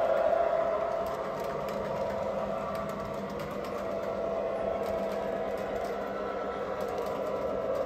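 O-scale model freight train, led by an MTH RailKing EMD MP15AC diesel with Proto-Sound 3.0, running on the layout. The wheels rumble on the track, mixed with the steady hum of the locomotive's diesel sound effects. It is louder in the first second, as the cars pass close by.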